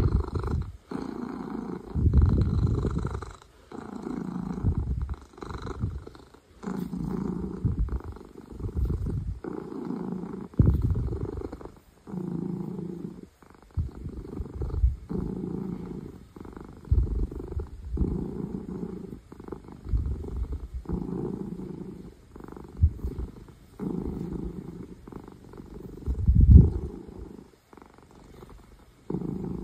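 Ragdoll cat purring loudly while being massaged. The purr swells and fades with each breath, breaking off briefly about every one to two seconds.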